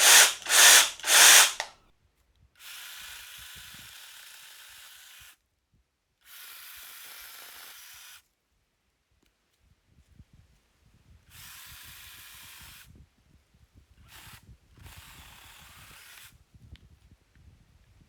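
Cordless brushless mini chainsaw running in short bursts. There are three loud blips at the start, then five quieter runs, most lasting one to three seconds and one very brief, with faint crackling between them.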